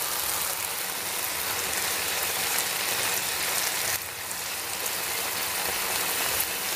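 Chopped onions and tomatoes sizzling steadily in hot oil in a non-stick kadai over a medium flame, stirred with a wooden spatula.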